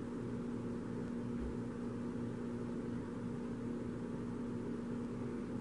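Steady room background hum: a constant low tone over a faint even hiss, with no other events.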